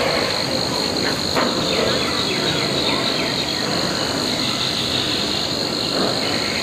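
A steady, high-pitched drone of insects, with a brief run of quick high chirps about two to three seconds in.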